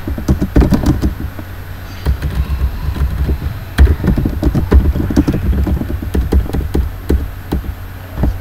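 Computer keyboard being typed on close to the microphone: an irregular run of key clicks and thumps in short bursts with brief pauses.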